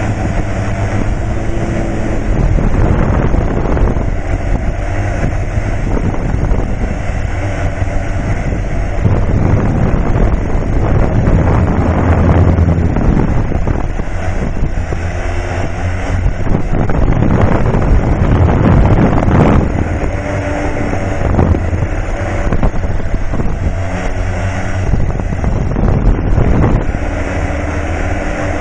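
Wind rush and motor drone picked up by a microphone on an FPV aircraft in flight, growing louder and easing off every few seconds.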